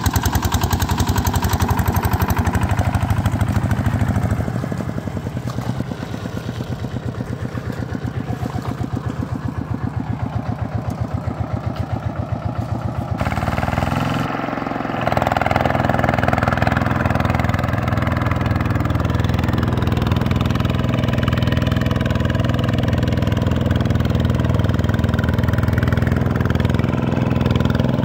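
Vikyno RV125-2 two-wheel hand tractor's single-cylinder diesel engine chugging steadily under load as it drives its cage wheels through flooded paddy mud. The level drops after about four seconds and comes back up, steadier, around the middle.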